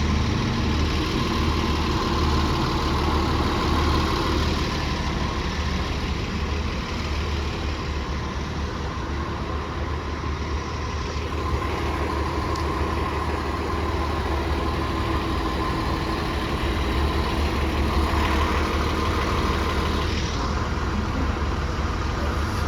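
Bus engine idling, a steady low hum that holds level throughout.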